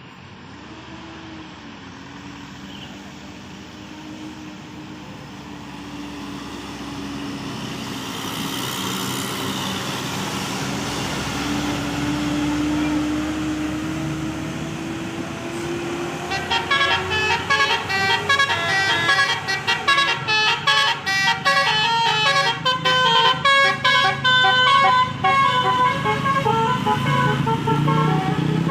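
A bus approaches, its steady hum growing louder and slowly rising in pitch. From about sixteen seconds in, its telolet musical air horn (a Basuri-type horn module) plays a fast tune of short, chopped notes until the end.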